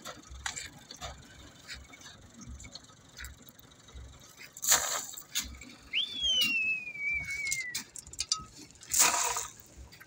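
Crushed stone shovelled off a tractor trolley onto a gravel road shoulder: scattered clinks of stone, with two louder rushes of gravel about four and a half and nine seconds in. Near the middle there is a whistle that jumps up and then falls slowly over about two seconds.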